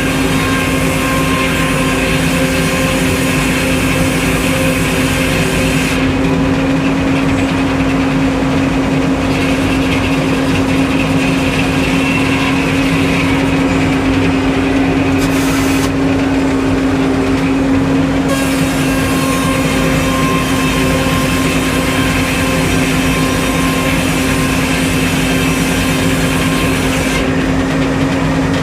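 Sawmill engine running steadily at a constant speed, with a higher hiss that drops out and comes back several times.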